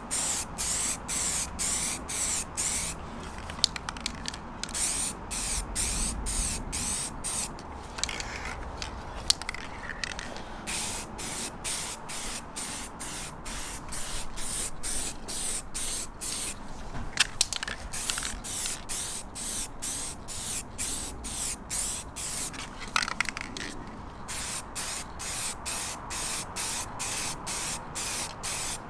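Aerosol spray paint can spraying in rapid short bursts, about three a second, with a few brief pauses between passes.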